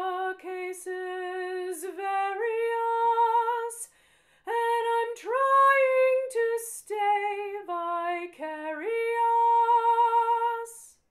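A woman singing an unaccompanied alto line in a slow adagio, holding long notes and stepping between pitches. There is a short pause about four seconds in, and the singing stops shortly before the end.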